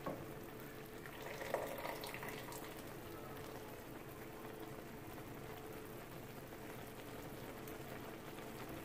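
Faint, steady simmering and bubbling of a pan of cream sauce and a pot of boiling pasta water, with soft wet sounds of spaghetti being lifted into the sauce with a plastic spaghetti server and a soft knock about a second and a half in.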